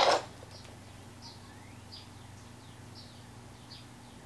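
A brief loud rustle of handling right at the start, then faint, short, high chirps that slide downward and recur every half second to a second: a small bird calling in the background.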